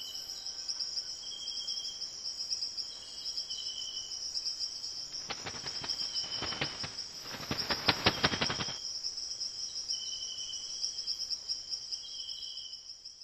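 Crickets chirping steadily in a high, pulsing trill, with shorter calls coming and going beneath it. A run of sharp, rapid clicks starts about five seconds in and lasts about three seconds.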